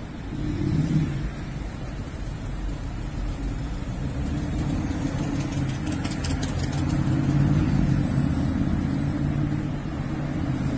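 Road traffic passing on a city street: a low engine-and-tyre rumble that swells about a second in and again, longer, around seven to eight seconds.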